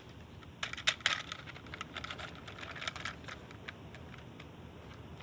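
Light hard-plastic clicks and rattles as the tail piece is handled and pushed onto the body of a transparent plastic toy T-rex: a run of quick clicks over the first three seconds, then a few scattered ones.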